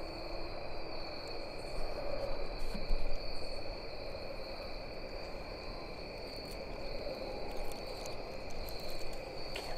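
Dusk chorus of crickets and other insects: steady, high-pitched trills at two different pitches, unbroken throughout, over low background noise.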